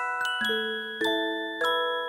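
Background music: a gentle melody of bell-like notes on glockenspiel-type mallet percussion, each struck note ringing and fading as the next comes in, a few notes a second.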